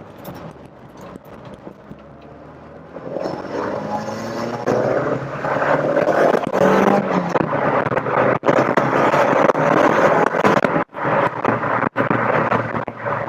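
Rover Metro's 1.8-litre K-series VVC engine pulling hard under acceleration, heard from inside the cabin. It grows much louder from about three seconds in and stays loud, with a few brief sudden breaks in the sound.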